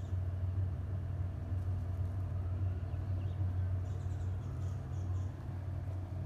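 A steady low rumble, with a few faint high chirps over it in the second half.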